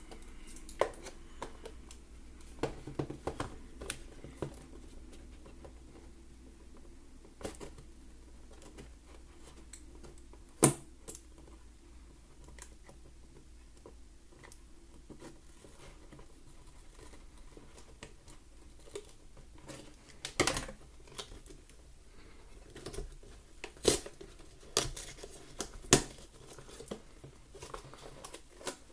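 Scissors snipping at a small cardboard toy box, with scattered clicks, taps and crinkles as the box and its clear plastic window are handled and opened. A few sharp clicks stand out.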